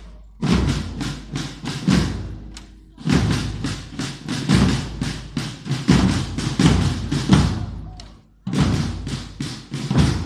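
Marching band drums playing a marching cadence: quick, steady drum strokes in phrases broken by brief pauses.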